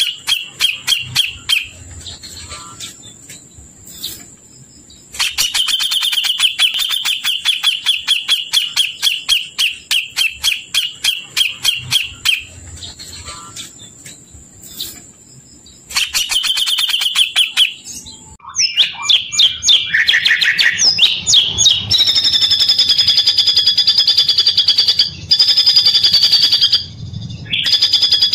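Recorded songbird calls played as masteran, a training song for cage birds: fast trains of sharp repeated chirps in several bursts with short gaps, turning into a steady high trill for the last few seconds.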